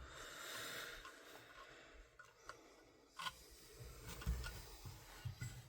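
Faint clicks and taps of metal airsoft gun parts being handled while the barrel nut is lined up, with a clearer click about three seconds in and another just after four.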